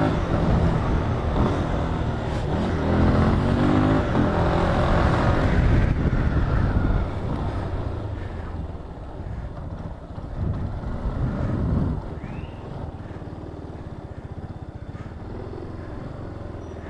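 Yamaha Fazer 250 single-cylinder four-stroke engine revving hard as the motorcycle accelerates, with wind rushing over the microphone. Over the second half it eases off, and near the end it settles to a low, steadily pulsing idle.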